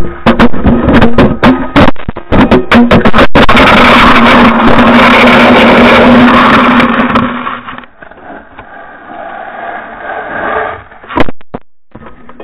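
Hockey stick blade repeatedly knocking a Xiaomi Yi action camera used as a puck, the camera clattering on pond ice in rapid, very loud hits. A few seconds of loud continuous scraping rush follow as it slides on the ice, then quieter handling with one sharp knock near the end.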